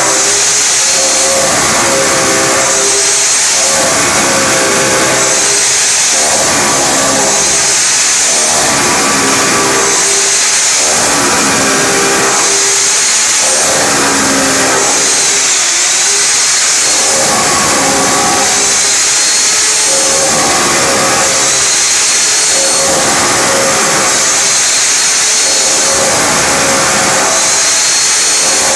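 Hammer drill running almost nonstop while it drills a row of holes into a gypsum-slab wall, its motor and bit noise surging and easing every two seconds or so as each hole is bored.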